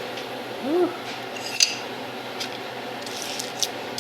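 Metal kitchen utensil clinking and tapping against a dish while hot baked potatoes are handled: a string of light clicks, the loudest about a second and a half in with a brief metallic ring.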